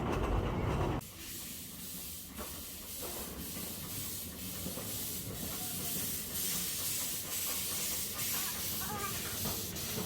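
Riding on a small tourist train: a loud low rumble cuts off suddenly about a second in, giving way to a steady hiss of the moving train with faint regular clicks from the wheels on the track.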